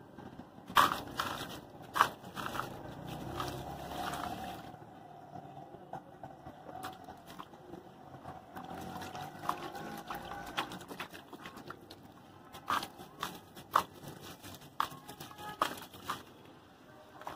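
A dry, porous sand-cement cylinder crunching and crumbling in the hands, its grains pattering and splashing into a basin of water. Hands also swish and squeeze the wet cement paste. There are sharp crunches about a second and two seconds in, and another run of crunches near the end.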